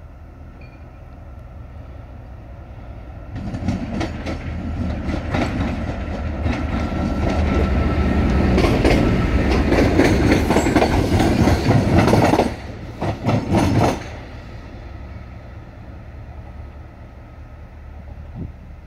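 Train of Mk3 passenger coaches, with Class 68 diesel locomotive 68017 in the consist, passing close at speed. Its wheels clatter rhythmically over the rail joints, building over several seconds. The sound drops off sharply as the end of the train goes by, comes back in a short final burst, then fades.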